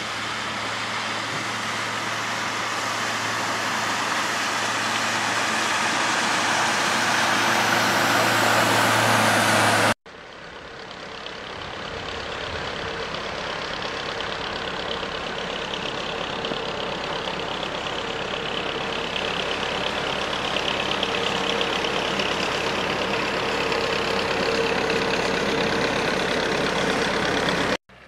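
Motorboat engine running as the boat comes closer, growing steadily louder. About ten seconds in it cuts off abruptly and a larger motor boat's engine takes over, a steady hum that also grows louder as it approaches, until another abrupt cut near the end.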